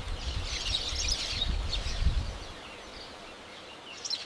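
Several small birds chirping over a faint forest hiss, busiest in the first couple of seconds and thinning out after, with a low rumble underneath for the first half.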